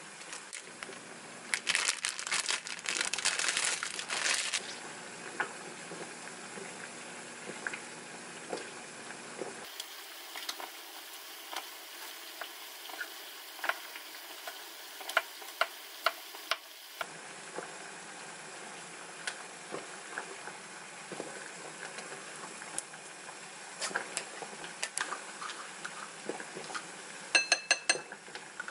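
Food preparation on a wooden cutting board, over a steady faint hiss. A few seconds in, a thin plastic wrapper crinkles as it is peeled off a fish cake bar. Later a kitchen knife taps against the board as the bar is cut into pieces, and near the end a spoon clinks and rings against a small glass bowl.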